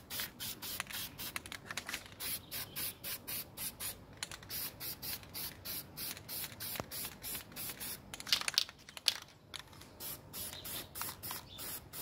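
Aerosol spray can of flat black paint hissing in quick short bursts, about three or four a second, as a second coat goes onto a masked car side mirror.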